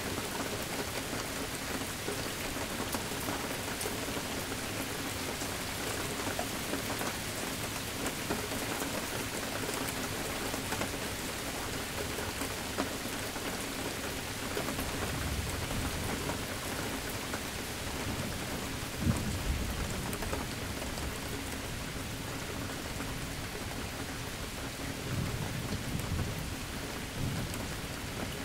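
Steady rain falling, with low rumbles of thunder in the second half: a short one about halfway, the strongest about two-thirds through, and another near the end.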